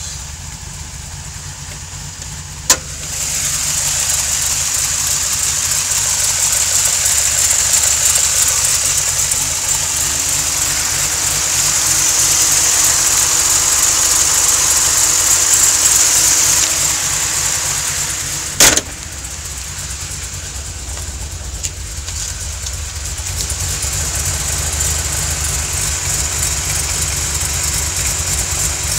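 Modified 2005 Ford Mustang engine idling steadily, with a loud high-pitched hiss over the exhaust note for much of the time, which the owner suspects is an exhaust leak. Two sharp clicks come about three seconds in and again past the middle, where the sound grows louder and then drops back.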